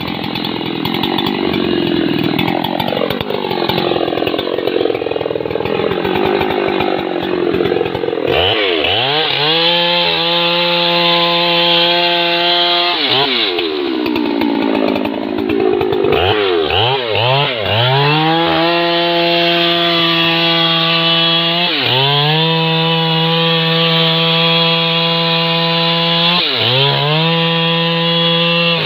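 Husqvarna 3120XP chainsaw, a big two-stroke, cutting into a rain tree's trunk. For the first several seconds the sound is rough without a clear pitch. Then the engine holds a steady high-revving note, and its pitch drops sharply and picks up again several times.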